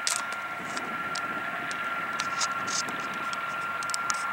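Canadair amphibious water bomber's engines running on the runway, heard across the airfield as a steady hiss with a constant high whine. Scattered short sharp clicks sound over it.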